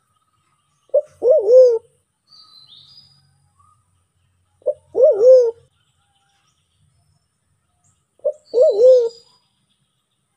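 White-faced cuckoo-dove (Sulawesi black pigeon, Turacoena manadensis) calling three times, about every three and a half seconds; each call is a short note followed by a longer, wavering coo.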